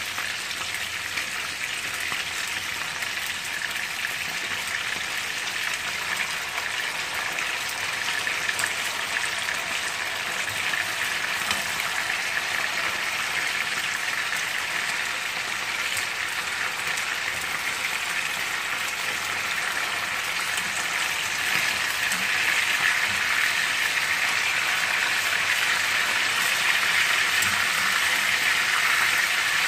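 Chicken pieces frying in hot oil in a nonstick frying pan: a steady sizzle with fine crackles, growing a little louder after about twenty seconds.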